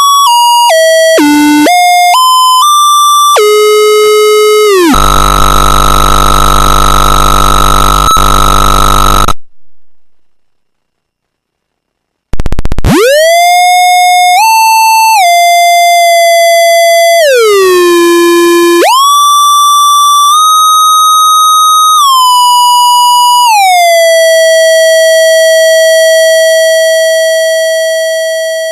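Square-wave tone from a 4046 CMOS chip's voltage-controlled oscillator, stepping from note to note with smooth gliding slides (portamento) as the control voltage changes. Partway through it drops to a low buzzy tone, then goes silent for about two seconds. It then slides through several more notes and ends on a held tone that fades out.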